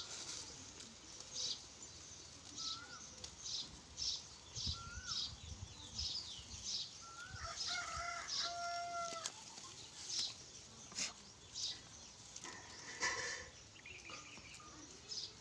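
Goats tearing at and chewing a bundle of dry fodder stalks: the dry leaves rustle and crackle in short bursts about twice a second. A few short bird calls sound in the background, with one longer call near the middle.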